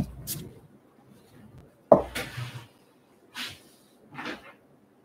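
Hands handling trading cards on a wooden desk: a sharp knock, then a louder knock with a dull thud about two seconds in, followed by two short hissing sounds near the end.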